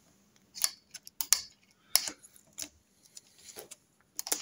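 Irregular sharp metallic clicks and taps as two magnet tools snap onto and work at the steel dish spacer on a Norton Commando crankshaft's end. The spacer will not come off, held to the main bearing by oil.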